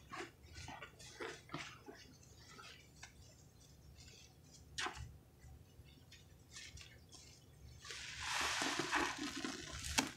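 Soaked sponges squeezed and rubbed in thick, foamy cleaner suds: soft wet squishes and crackling foam, with one sharper squish about halfway. Near the end comes a longer, louder squelching squeeze of a stack of sponges.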